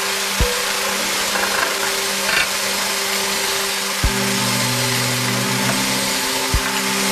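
Corded electric drill spinning a wire brush against a steel pipe, a steady scraping hiss as rust and old paint are scrubbed off. A few dull thumps.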